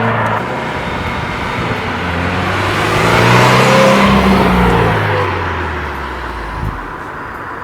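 Subaru WRX's turbocharged flat-four engine and exhaust as the car drives past. The engine note climbs in pitch and grows louder to a peak about three to four seconds in, then falls in pitch and fades as the car moves away.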